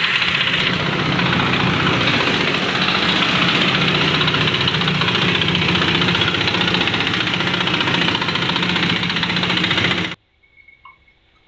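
A loud, steady mechanical running noise, like an engine or motor at a constant speed, with a fast even pulsing; it cuts off abruptly about ten seconds in.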